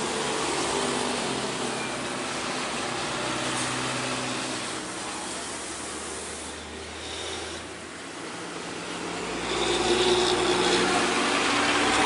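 Road traffic passing close by: trucks and a van with their engines running, a continuous noisy rumble. It dips briefly, then grows louder with a deeper engine rumble about nine or ten seconds in as another vehicle passes.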